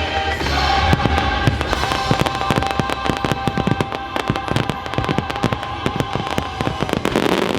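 Fireworks going off in rapid, dense bangs and crackles over loud show music that holds one long note.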